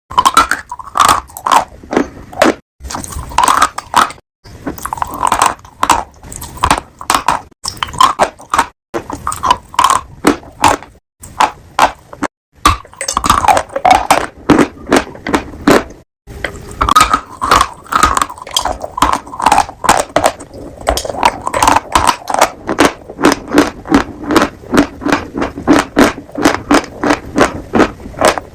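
A piglet chewing crunchy food close to the microphone: a fast run of crisp crunches, two to three a second, broken by a few brief pauses.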